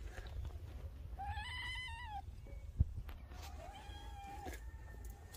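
Cat meowing twice, two drawn-out meows of about a second each, about a second in and about three and a half seconds in, with a single sharp tap between them.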